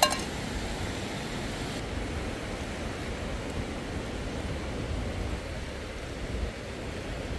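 Steady rushing noise of sea surf and wind, with one short sharp click right at the start.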